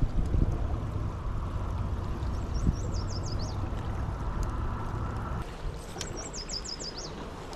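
Steady rush of a fast mountain river, with a low rumble that drops away about five seconds in. A bird sings a short run of quick, falling high notes twice.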